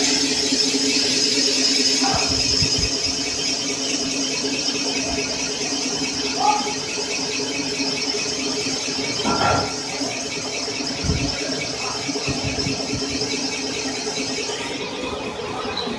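Cylinder boring machine running with its boring bar in an engine block's cylinder bore, a steady machine whine with a high squealing band above it. The highest part of the sound falls away near the end.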